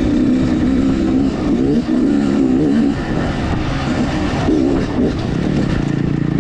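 Dirt bike engine running as it is ridden, its revs rising and falling with the throttle.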